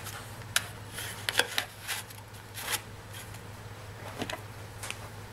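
A scraper being dragged across a steel nail-stamping plate to spread nail polish, giving scattered short scrapes and clicks, several in the first three seconds and a couple near the end, over a steady low hum.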